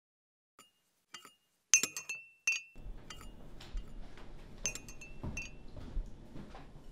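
Spoon stirring in a cup, clinking against its sides in a string of sharp, ringing clinks, loudest about two seconds in. A faint low room hum comes in about three seconds in.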